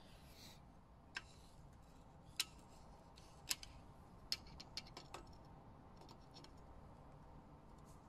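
Sharp metallic clicks of steel wrenches being set on a bicycle bottom bracket's adjustable cup and lockring: about eight separate clicks between one and five seconds in, over a faint hiss.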